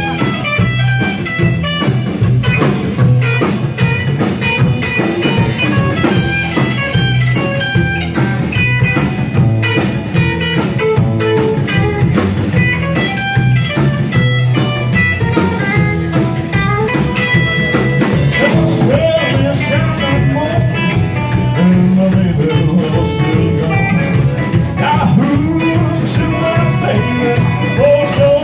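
Rockabilly band playing live: upright double bass, acoustic guitar and electric guitar over a drum kit.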